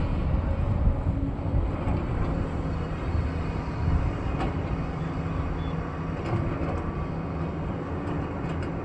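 Diesel engine of heavy earthmoving machinery running steadily, with a few faint knocks.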